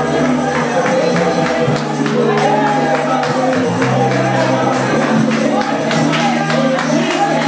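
Lively gospel praise music: singing over a steady percussion beat, with tambourine and held bass notes.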